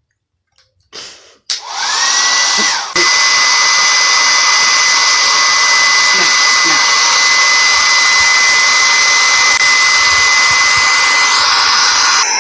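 Hair dryer switched on about a second and a half in: its motor whine rises to a steady high tone over the rush of blown air. A click comes about three seconds in as it gets louder, and then it runs steadily.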